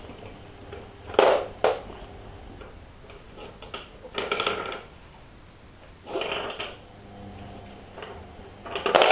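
Pieces of a bone-shaped dog treat puzzle clattering and scraping against the board in several short bursts as a beagle noses them aside to get at the hidden treats.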